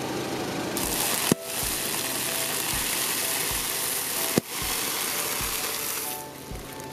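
A car tyre rolling over a plastic bag of puffed corn sticks, crushing them with a dense crackling crunch and two sharp snaps about three seconds apart. Background music with a steady beat plays underneath.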